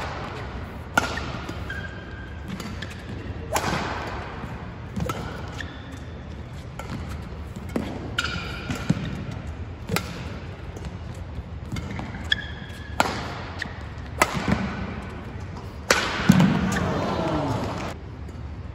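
Badminton rally: the shuttlecock is struck back and forth with rackets, a sharp hit every one to three seconds, with short squeaks of shoes on the court floor in between.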